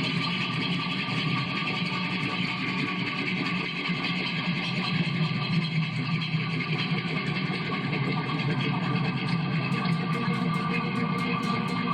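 Bass guitar being played for noise rather than notes through an amplifier and effects: a steady, dense noisy drone without a clear note. Quick ticks come in near the end, about four a second.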